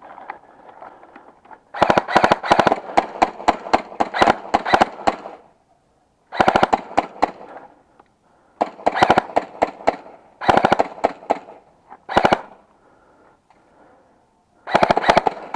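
Airsoft guns firing in repeated bursts of rapid sharp shots: a long burst of about three seconds, then five shorter bursts with pauses between them.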